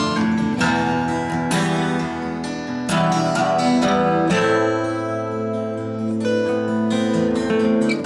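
Background music of a strummed acoustic guitar, its chords changing every second or so.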